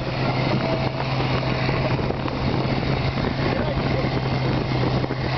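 Outboard motors running steadily under way, an even engine drone with water rushing and splashing along the hulls.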